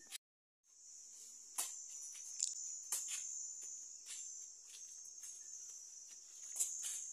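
Steady high-pitched insect chirring, with scattered rustles and light knocks from a woven plastic sack being tied around a banana bunch. The sound cuts out completely for about half a second near the start.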